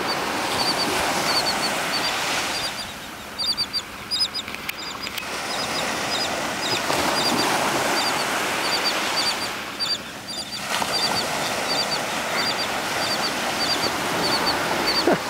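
Royal terns giving short, high chirping calls in quick pairs, about two or three a second and unbroken, over a steady rushing background.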